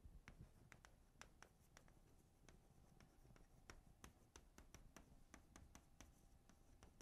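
Near silence with faint, irregular ticks and scratches of writing, a few to several a second.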